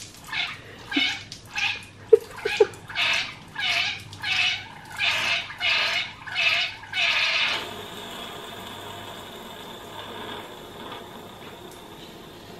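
Compressed air going in through the valve of a water-filled tractor tyre and gurgling through the water in a quick series of whooshes, about two a second. About halfway through it settles into a steadier, quieter hiss.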